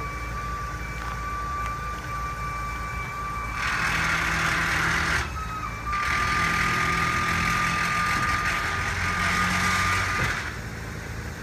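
Car transporter's hydraulic lift platform lowering a Porsche 911 GT3: a steady high-pitched whine with two long stretches of loud hissing, about four seconds in and again from six to ten seconds. Underneath is the low rumble of an idling engine.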